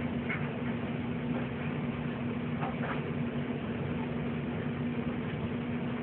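Steady low hum with an even hiss behind it, and two faint, brief rustles.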